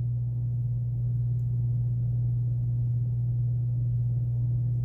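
A steady, unchanging low hum.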